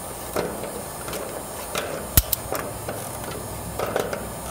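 Pliers clicking and knocking against a metal lock nut and the sheet-metal box as the nut on the power cable connector is snugged tight, with one sharp metallic click about two seconds in.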